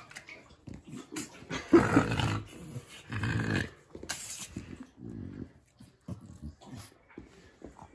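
French bulldog growling and grunting in short irregular bursts while her belly is rubbed, the two loudest bursts about two and three and a half seconds in.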